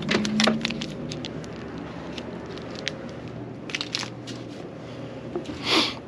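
Crinkling of plastic-wrapped chocolate bars being pulled from a rack, with scattered clicks and taps as items are handled and set down on a counter, over a steady low hum. A brief rush of noise near the end.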